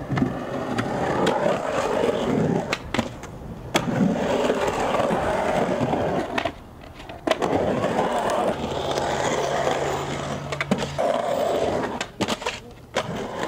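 Skateboard wheels rolling and carving across a concrete bowl, with repeated sharp clacks of the board and trucks striking the concrete. The rolling drops out briefly about six and a half seconds in.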